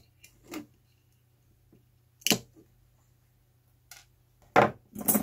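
Handling noise from a die-cast metal cable-TV tap housing being moved about on a wooden workbench: a handful of separate clicks and knocks, the loudest near the end.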